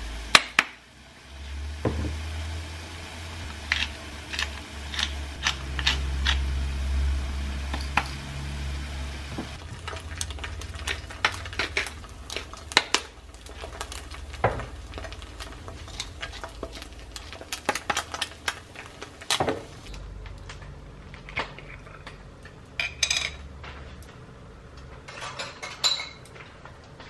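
Kitchen cooking sounds: scattered clinks and knocks of utensils against frying pans and dishes.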